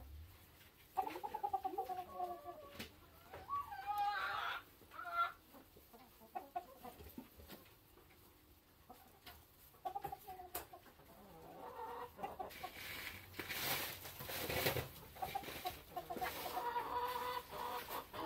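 Domestic chickens, a flock of hens, clucking and calling in short wavering phrases on and off, with a stretch of rustling and one sharper noise about two-thirds of the way through.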